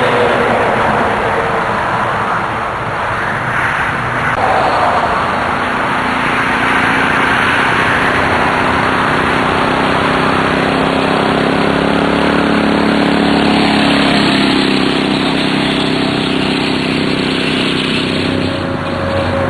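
Lawn mower engine running loud and steady, its engine note coming through more clearly about halfway in.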